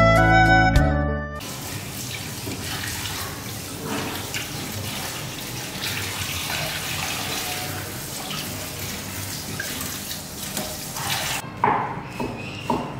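Kitchen tap water running steadily into a sink, splashing as leaves are rinsed under it. It stops shortly before the end and gives way to a few light knocks.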